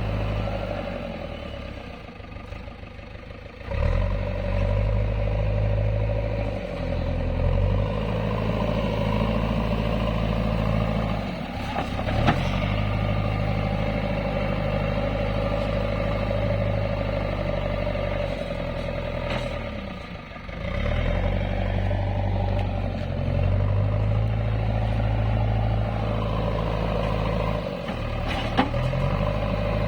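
JCB earthmover's diesel engine running and revving under load, its speed dropping away and picking up again several times as it works. Two sharp knocks of metal clatter, one about twelve seconds in and one near the end.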